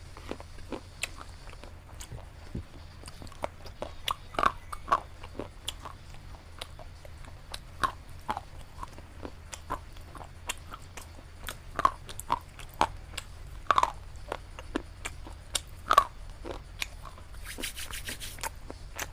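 Close-up mouth sounds of biting and chewing something hard and dry, with sharp crisp crunches coming irregularly, a few a second, and chewing in between.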